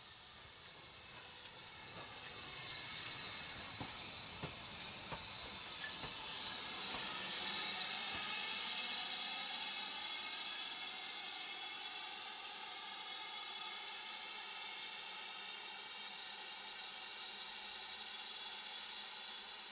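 Steam hissing from BR Standard Class 4MT 2-6-4 tank locomotive 80151, a steady hiss that grows and is loudest about halfway through. In the first half a low rumble and a few clicks sit under it, then stop.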